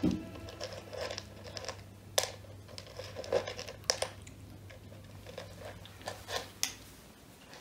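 A kitten eating dry kibble from a plastic bowl: irregular small crunches and clicks as it chews and picks up pieces, over a faint steady low hum.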